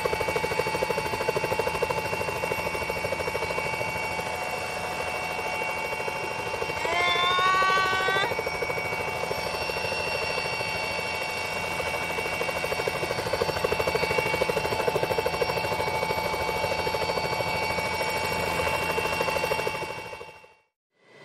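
Helicopter turbine whine and rotor noise heard from inside the cabin, running steadily. A short rising voice sound stands out about seven seconds in, and everything cuts off abruptly about a second before the end.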